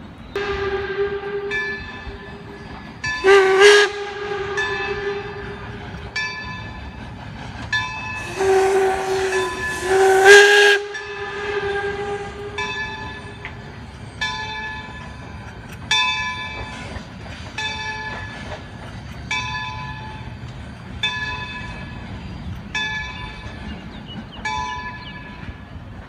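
Baldwin 26 steam locomotive sounding its steam whistle in several blasts: a short loud one about three seconds in, then two long ones from about eight to eleven seconds in over a rush of steam, the loudest of all. Meanwhile its bell rings steadily, about one stroke a second.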